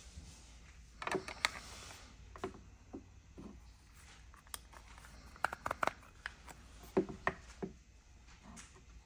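Scattered clicks and taps of hard plastic as a Samsung Galaxy Z Flip 4 in its shell case is handled and pressed into a plastic belt-clip holster. A quick cluster of sharper clicks comes in the middle, and a few more come about seven seconds in.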